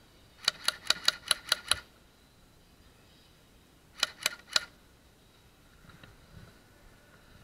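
Airsoft gun shots: a quick string of about seven sharp cracks, then three more about two seconds later.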